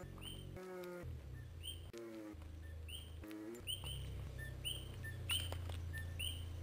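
Coqui frogs calling: short rising chirps repeated about every half second to second, more often in the second half, over a steady low hum.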